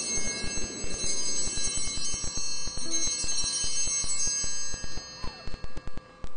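Altar bells rung at the elevation of the chalice after the consecration. Several high tones ring together and fade out about five seconds in, with many short clicks throughout.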